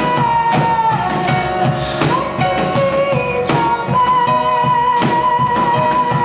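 Live band music: a woman singing long held, high notes over a strummed acoustic guitar and a drum kit.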